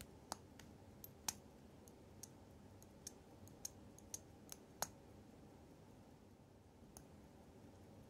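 Faint, sharp, irregular clicks from a Ricoh Dynamic Wide automatic wristwatch as its crown is turned to advance the hands and date. The clicks come quickly for about five seconds, then stop, with one more near the end.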